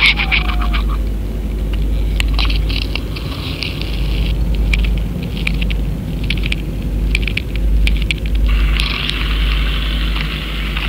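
Steady low rumble of water rushing past a GoFish underwater camera's housing as it is pulled through the water. Two spells of scraping and crackling, a couple of seconds in and again near the end, come as weeds brush across it.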